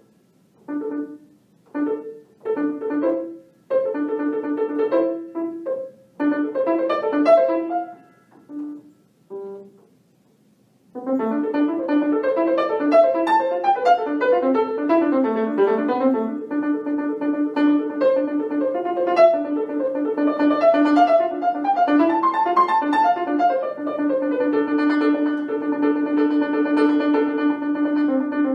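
Solo piano playing a contemporary classical piece: short, separated chords and phrases broken by silences, then, about eleven seconds in, a continuous flowing passage.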